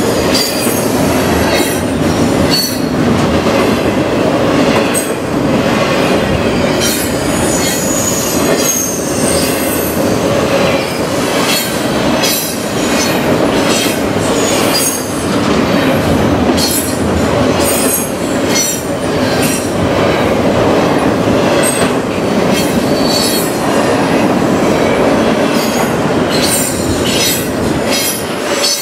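Double-stack container freight cars rolling past on the rails: a loud, steady rumble of wheels on track, with irregular clicking and short bursts of high-pitched wheel squeal.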